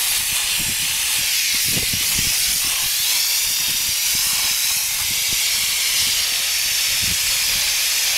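Coil gun on a garden hose spraying water onto a heat pump's outdoor coil: a loud, steady hiss of the jet with scattered low spatters, rinsing dirt out of the coil fins.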